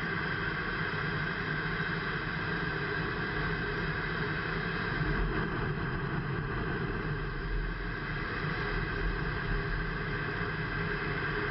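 Steady rushing noise of engines and airflow heard inside a fighter jet cockpit in flight.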